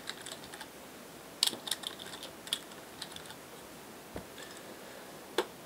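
Computer keyboard typing: a quick run of keystrokes about a second and a half in, then a few scattered single clicks, the sharpest one near the end.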